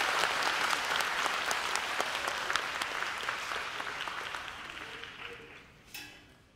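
Audience applauding, the clapping fading away steadily over several seconds. A short ringing knock sounds near the end.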